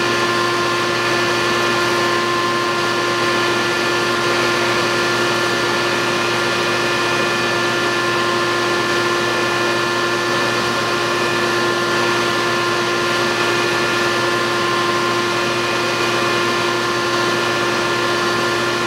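Handheld electric dog grooming brush running steadily as it is worked through a dog's thick coat, a constant motor whine of several steady pitches over a rush of air.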